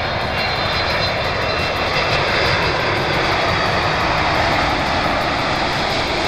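Jet airliner's engines running loud and steady as it passes close by, with a faint high whine in the first few seconds.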